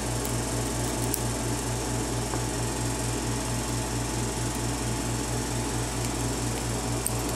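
Steady low mechanical hum that pulses evenly about four times a second, with a couple of faint light clicks.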